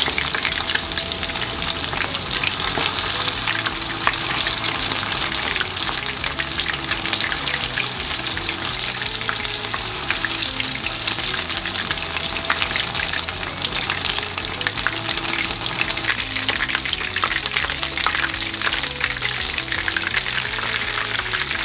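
Batter-coated chicken pieces frying in a frying pan with about 3 cm of hot oil: a steady, dense sizzle and crackle as the pieces are turned over in the oil. Light background music runs underneath.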